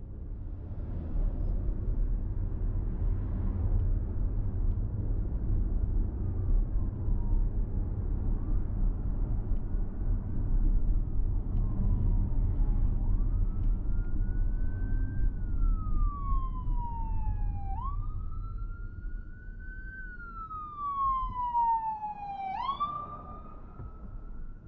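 Emergency vehicle siren wailing in slow rises and falls of pitch, faint at first and much louder over the second half, over the steady low rumble of a car driving along the road.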